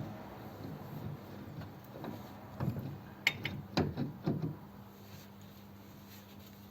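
Metal clicks and knocks from the parts of a lathe setup being handled and adjusted by hand, with a cluster of sharp knocks between about two and four and a half seconds in.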